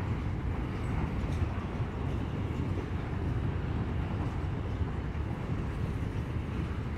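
Freight train cars, covered hoppers and boxcars, rolling past with a steady low rumble of wheels on rail.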